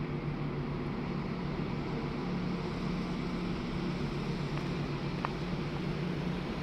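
A city bus's diesel engine idling steadily.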